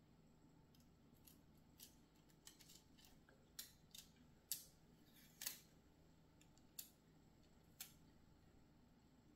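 Faint, irregular sharp clicks and snips from small hands-on work with model parts and sticker sheets, about a dozen, the loudest near the middle.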